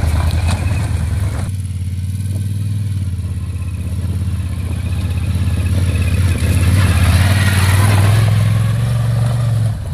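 Moto Guzzi adventure motorcycle's V-twin engine running at low revs on a dirt trail, growing louder as the bike approaches and passes close by near the end.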